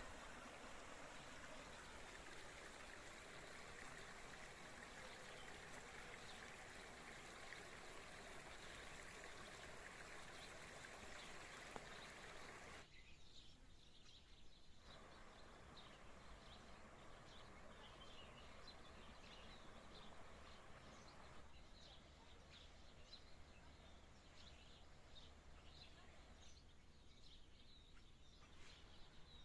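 Faint running water of a spring stream, a steady hiss, with birds chirping. The background changes abruptly about halfway through and a few more times after, and the bird chirps are clearer in the second half.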